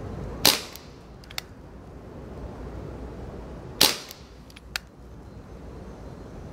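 Webley Mk6 CO2 air pistol firing .177 pellets: two sharp cracks about three and a half seconds apart, each followed roughly a second later by a much fainter click.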